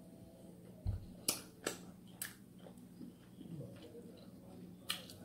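Close-miked eating sounds: a few sharp mouth clicks and smacks while chewing fried chicken, with a low thump about a second in.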